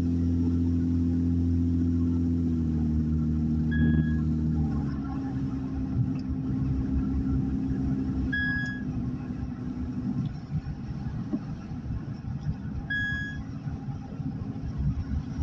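Inside a moving car: a steady engine hum that steps down in pitch twice in the first five seconds, giving way to road and tyre rumble. A short high beep sounds three times, about every four and a half seconds.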